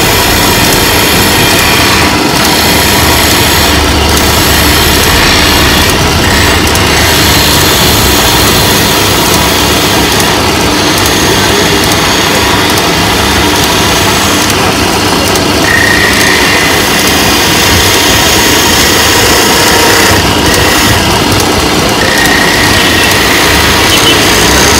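Powered wood lathe running while a flat chisel cuts a spinning wooden leg: steady, loud motor noise mixed with the scraping hiss of the blade shaving wood.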